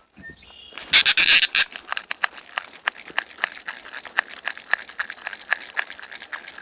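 Small fishing reel on a short rod clicking steadily, about four clicks a second, after a loud rushing burst about a second in.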